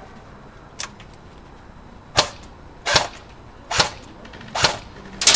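Airsoft gunfire: a faint click, then four single shots a little under a second apart, then a quick burst of shots starting near the end.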